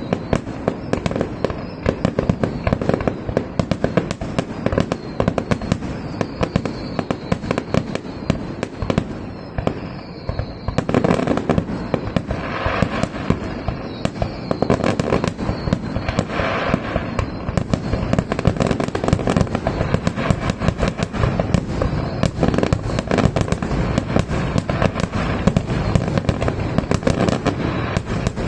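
Fireworks finale: a continuous, dense barrage of rapid bangs and crackles. A few short falling whistles sound in the first third.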